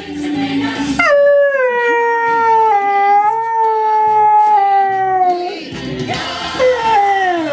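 A husky-type dog howling along to TV theme music: one long howl starting about a second in that slowly falls in pitch, then a second falling howl near the end.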